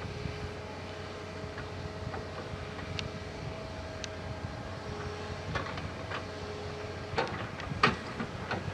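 Doosan DX180 LC hydraulic excavator at work: diesel engine running steadily with a thin whine that comes and goes, and a run of sharp knocks in the second half, the loudest about eight seconds in.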